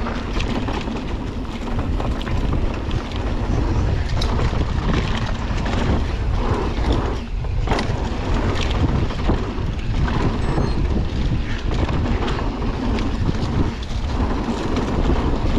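Wind rushing over the microphone of a handlebar-mounted camera on a mountain bike riding a dirt trail, with the tyres rolling on dirt and frequent clicks and rattles from the bike over bumps.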